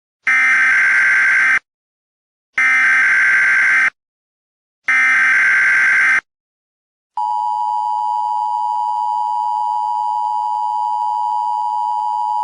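Emergency Alert System tones: three harsh, screeching data bursts of about a second each, the SAME header, then about seven seconds in the steady two-pitch EAS attention tone begins and holds.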